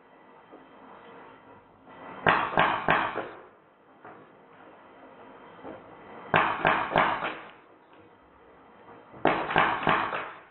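Drozd Blackbird BB gun, run on compressed air from a high-pressure paintball tank, firing three short full-auto bursts of a few rapid shots each, about four seconds apart, with BBs striking a popsicle-stick and toy target.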